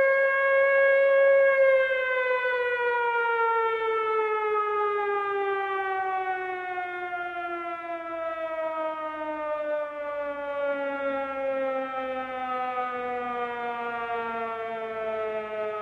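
Air-raid siren holding one steady wail, then about a second and a half in starting a long, slow fall in pitch as it winds down, growing gradually quieter.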